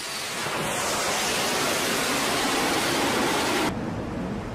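Jet engine at full power as a fighter launches off an aircraft carrier deck: a loud, steady rushing noise. It cuts off abruptly near the end, leaving softer wind and sea noise.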